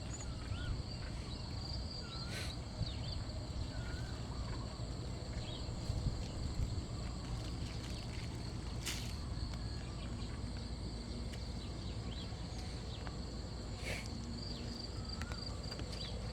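Insects, cricket-like, trilling steadily in a high-pitched chorus, with scattered short chirping calls and three sharp clicks.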